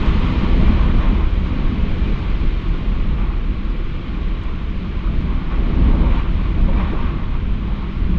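Strong wind storm blowing against the microphone: a loud, steady low rumble and hiss that swells and eases slightly in gusts.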